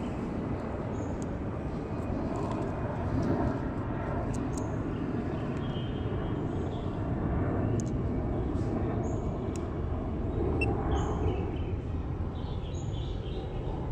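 Steady outdoor background rumble, like distant traffic, with faint short high chirps every second or two.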